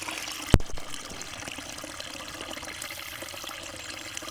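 River water trickling and flowing steadily, with one low thump about half a second in.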